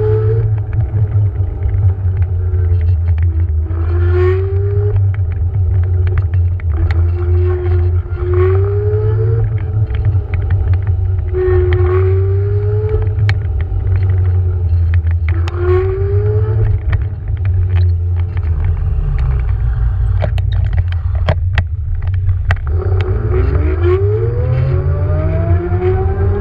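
Electric scooter's motor whining while riding over asphalt, its pitch dipping and rising again and again with speed, then climbing steadily near the end as the scooter accelerates. Under it a heavy low rumble of wind and road vibration on the mount, with occasional knocks from bumps in the path.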